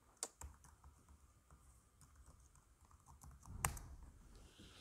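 Laptop keyboard typing: faint, scattered key clicks, with a harder tap about three and a half seconds in.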